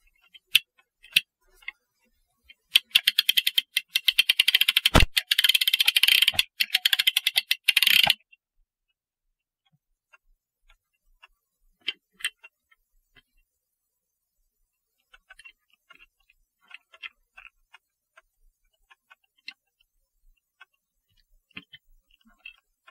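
Clock mainspring winder being worked by hand: a few sharp metal clicks, then about five seconds of fast, even ratchet clicking with one dull knock in the middle. After that come scattered light metal clicks and taps as the mainspring and winder parts are handled.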